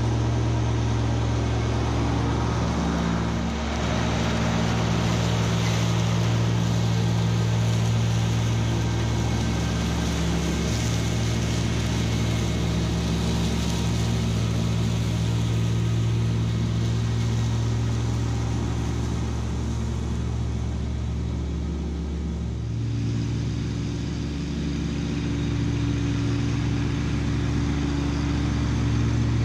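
Kubota B2601 compact tractor's three-cylinder diesel engine running steadily under load, with its PTO driving a finish mower through tall, dense grass. The engine eases briefly about three-quarters of the way through, then comes back up.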